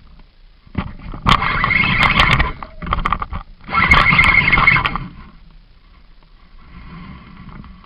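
Fishing reel drag screaming in three bursts of about a second each as a hooked mulloway pulls line, a steady high whine laced with fast clicking; fainter near the end.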